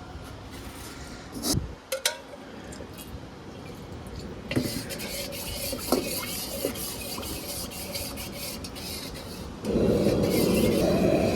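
Metal cookware and utensils clinking a few times in a kitchen. A steady hiss then sets in, and near the end a loud, steady rumbling roar starts up and keeps going.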